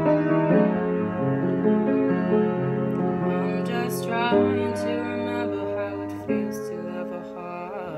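Upright piano played in slow, held chords that ring on, changing about once a second and growing softer near the end.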